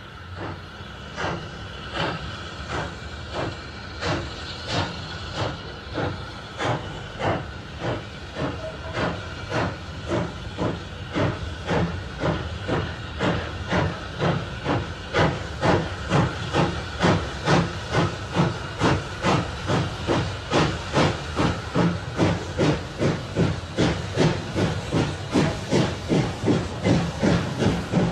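Steam locomotive working hard, its exhaust beats speeding up steadily from about one and a half a second to about two and a half and growing louder as it gathers speed, over a constant hiss of steam.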